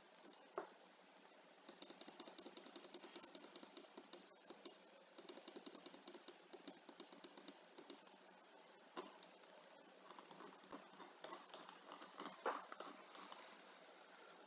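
Faint rapid clicking on a computer while paging through a document: two runs of about eight clicks a second, each a few seconds long, then scattered slower clicks.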